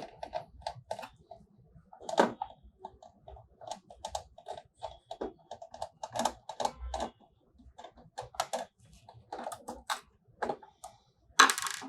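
A screwdriver and hands working at the laser printer's motor mount to undo its screws: a long run of short, irregular clicks and taps, with a louder scrape about two seconds in and a dense burst near the end.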